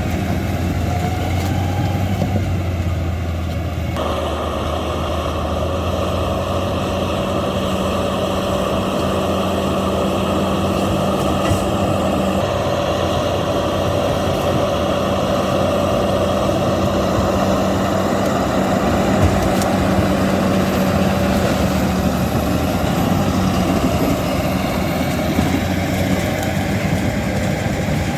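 Caterpillar D8 bulldozer's diesel engine running steadily as the dozer works. The sound grows fuller and brighter about four seconds in.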